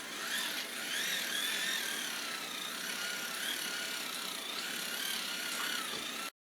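Hand-crank dynamo of a MECO crank and solar LED flashlight whirring as it is cranked to recharge the drained battery. The pitch wavers up and down with the cranking speed, and the sound cuts off suddenly near the end.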